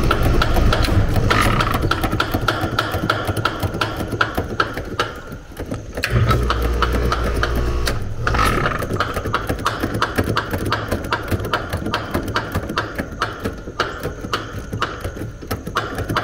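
Trane outdoor AC condensing unit running during a refrigerant pump-down, its low hum dipping briefly about five seconds in, with repeated sharp clicks of a wrench working the service valve.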